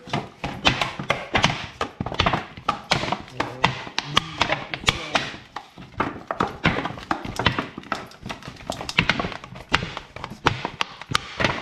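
Dumpling dough being kneaded by hand in a large metal bowl: a run of irregular thuds and knocks, a few each second, as the dough and hands press and slap against the bowl.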